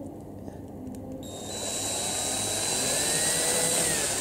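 Small handheld electric drill whining up to speed about a second in and running with a high, steady whine as it bores a ventilation hole through an action camera's housing.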